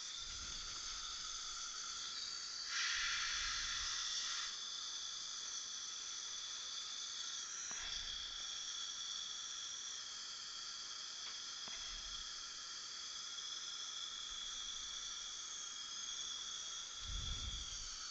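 Dental suction running: a steady hiss with a high whine, surging louder for a couple of seconds near the start.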